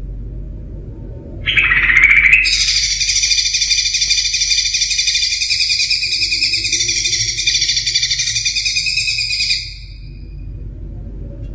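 Cucak ijo (green leafbird) singing. A short burst comes about a second and a half in, then a loud, fast, rapidly warbling run of song holds for about seven seconds before it stops. A low steady hum lies underneath.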